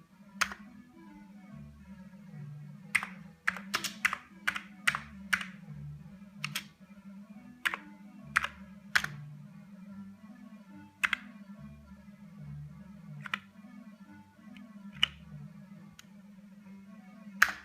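Keys of an original Commodore 65 keyboard being pressed one at a time: sharp, irregular clicks with a quick run of presses a few seconds in. Keys are being tested to see that each registers, the last click near the end being the RUN/STOP key. Soft background music with a steady bass pattern plays underneath.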